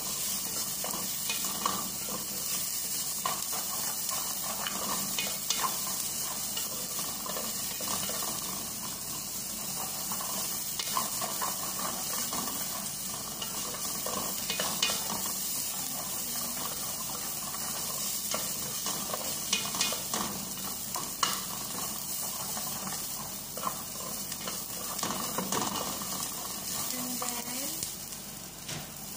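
Chopped onions with ginger-garlic paste sizzling in hot oil in an aluminium pot, stirred with a wooden spoon that scrapes and taps against the pot. A steady hiss runs under frequent short clicks from the spoon.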